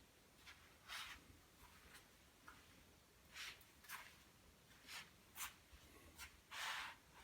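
Faint, short scratchy swishes, about seven of them at irregular intervals, the last one a little longer.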